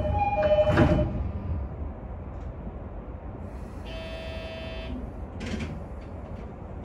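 Sotetsu Izumino Line train running, heard from the front cab. A two-tone alternating chime ends within the first second, and an electronic buzzer tone sounds for about a second about four seconds in.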